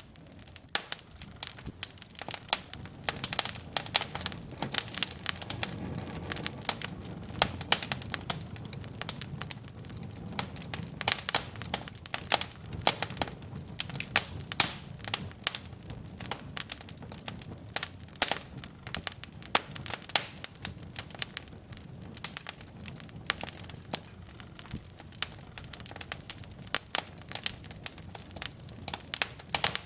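Wood fire burning in a fireplace: logs crackling and popping in a dense, irregular run of sharp snaps over the low rush of the flames.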